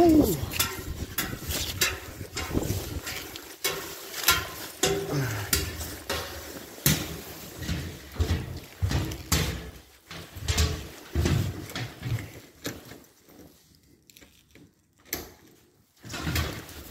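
Boot footsteps and knocks on a hard floor as someone walks into a building, uneven and at about walking pace. They thin out about three quarters of the way through. There is a short falling squeak at the very start.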